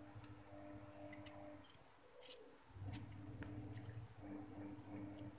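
Knife cutting soft, slippery aloe vera gel in a steel bowl: faint scattered clicks and wet squishes as the blade goes through the gel and touches the bowl.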